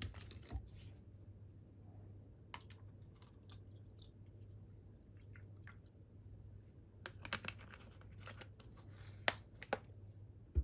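A plastic drink bottle handled and poured into a paper cup, with scattered sharp clicks and crackles of the plastic, and two louder knocks near the end as the bottle is set down.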